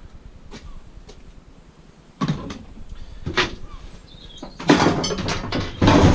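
Scrap metal clanking as it is handled: two separate knocks, then a burst of clattering about halfway through and a loud knock near the end.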